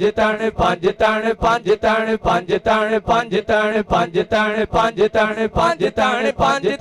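A man chanting a short devotional refrain over and over in a fast, even rhythm, about four syllables a second, amplified through a microphone and loudspeakers.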